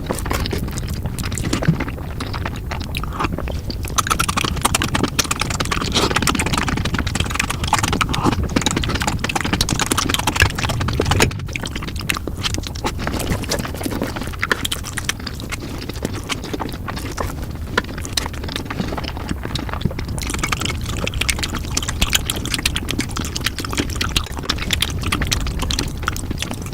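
Noodles being eaten in big bites, the chewing sped up four times into a dense, continuous run of quick clicks.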